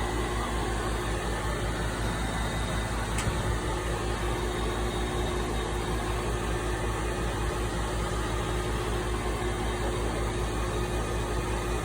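Outdoor air-conditioner condenser unit running with a steady hum, with a faint click about three seconds in.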